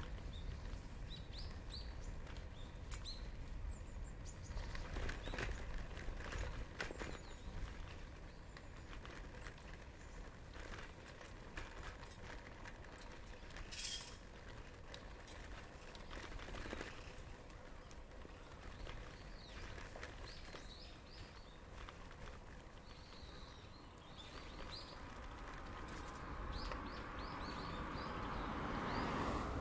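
Birds chirping in short, high calls over the low rumble of a bicycle being ridden, with scattered clicks and rattles. A rush of noise builds near the end.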